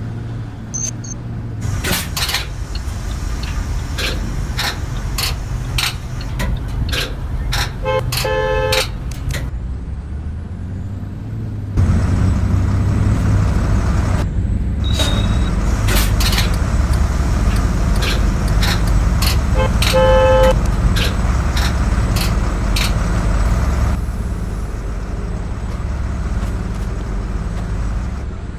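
School bus with its engine running as a low, steady rumble that grows louder in the middle, and two short horn honks about twelve seconds apart. Sharp clicks are scattered throughout.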